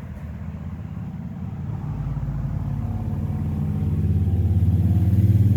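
A motor vehicle's engine running, growing steadily louder over several seconds as it draws near.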